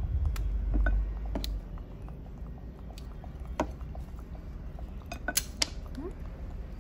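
Hard tuber shells and a dish being handled while the tubers are peeled: scattered sharp clicks and clinks, with a few louder ones about five seconds in. A low rumble runs through the first second and a half.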